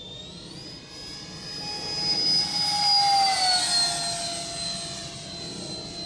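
Twin 64 mm electric ducted fans of an RC F-22 jet whining in flight. The whine steps up in pitch just after the start, swells to its loudest about three seconds in, then falls in pitch and fades a little.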